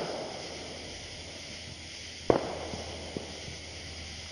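Firecrackers going off: one sharp bang about two seconds in, echoing briefly, then a couple of fainter pops.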